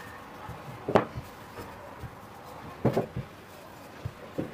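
Wooden rolling pin rolling out dough on a floured wooden table, giving a few knocks of wood on wood: a sharp one about a second in, a small cluster around three seconds and another near the end.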